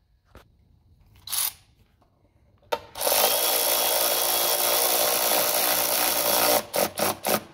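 Cordless power drill turning a socket on an extension, running a fuel-pump clamp bolt down: one steady run of about three and a half seconds, then several short trigger bursts near the end to snug the bolt tight.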